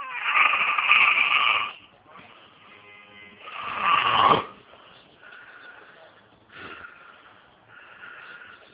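A man snoring in his sleep: two loud snores about two and a half seconds apart, the second building up and then cutting off sharply, followed by three softer, shorter snores.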